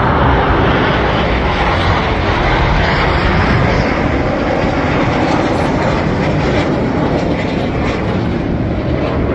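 Aircraft engine noise from a display aircraft flying past, loud at first and slowly easing off.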